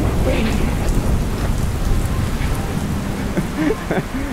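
Heavy rain pouring down, a steady hiss with a strong low rumble beneath it.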